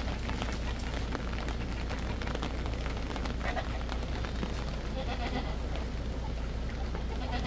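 Goat bleating briefly about halfway through, over a steady background hiss, with light clicking as the goats feed from metal bowls.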